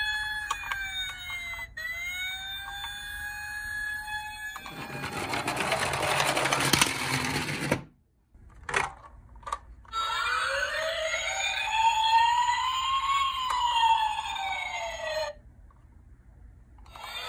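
Electronic toy police car sirens wailing up and down. A loud rushing noise takes over about four seconds in and stops suddenly, followed by a couple of clicks. From about ten seconds in, several siren wails rise and fall over one another for about five seconds.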